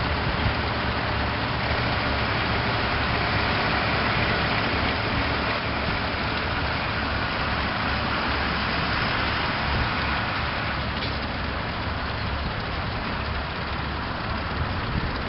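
Heavy diesel engine running steadily at an even pitch, with no change in revs.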